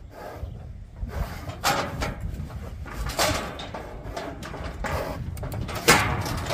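Steel cattle head gate knocking and rattling as the cow held in it shifts, a string of sharp clanks with the loudest near the end, over low wind rumble.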